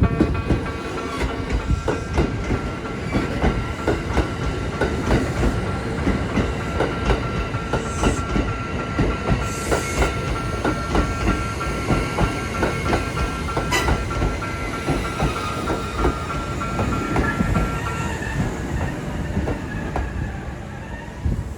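Kintetsu train rolling past, its wheels clacking over the rail joints in a steady rhythm over a low rumble. A steady high tone runs alongside and stops about 18 seconds in.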